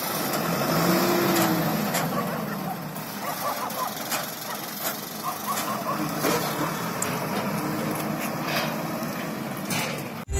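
A medium lorry's engine running as the lorry drives slowly away, under a steady outdoor noise with scattered light clicks.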